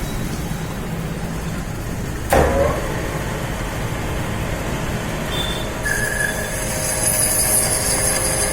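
Metal lathe running steadily, with one sharp knock about two seconds in and a high squealing whine from the cutting that starts about six seconds in.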